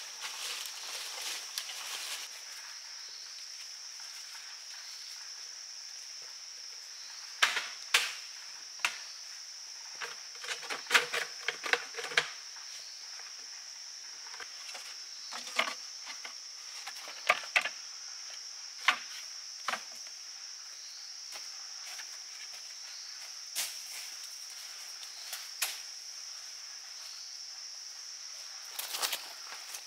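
Steady high-pitched drone of forest insects, with scattered sharp knocks and clatters, the loudest bunched together about a third of the way in, as a bamboo pole and stones are handled among the rocks.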